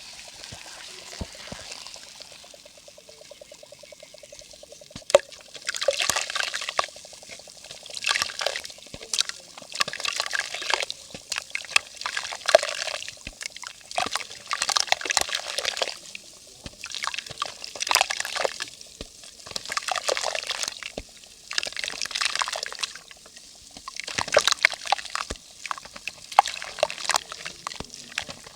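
Water on dry yellow mud in a clay pot: a soft fizzing for the first few seconds, then short bursts of splashing and crumbling, about one every two seconds.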